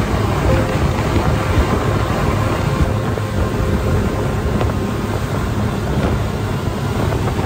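Speedboat with outboard motors running at speed, with heavy wind rushing over the microphone and water rushing past the hull.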